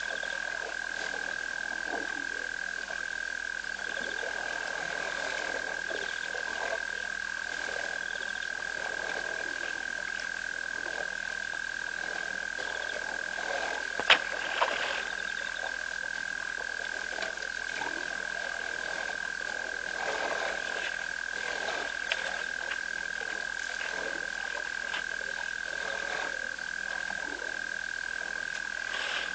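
A steady, unbroken chorus of frogs calling at a waterhole, with scattered soft water sounds from elephants drinking and one sharp click about 14 seconds in.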